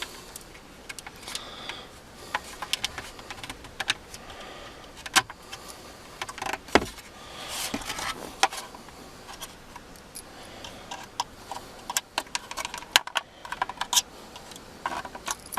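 Irregular plastic clicks, knocks and rattles as the retaining tabs of a VX Commodore power window switch panel are pushed in by hand and the panel is worked loose.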